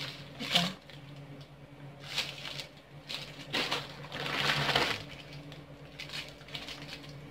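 Clear plastic bags and food wrappers crinkling in several short bursts as packaged snacks are handled, over a low steady hum.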